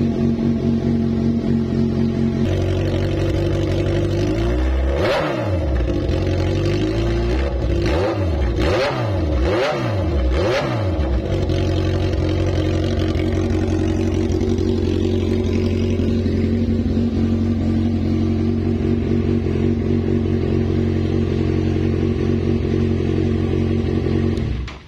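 2012 Kawasaki Z1000's 1043 cc inline-four running through an Akrapovic full-system megaphone exhaust, idling steadily. Between about five and eleven seconds in it is blipped five times, each rev rising quickly and dropping straight back to idle.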